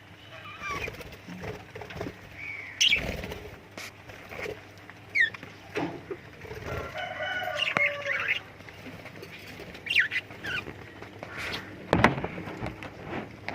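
Pet lovebirds chirping and squawking in short, irregular calls, with a longer harsh call about halfway through. A few sharp thumps or flutters come in between the calls.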